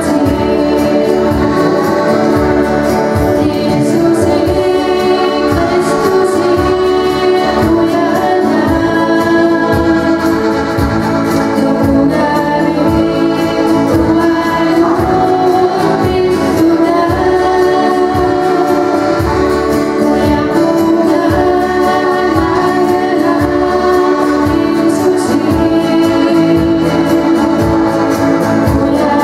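Voices singing a Greenlandic Christian worship song with instrumental accompaniment and a steady beat.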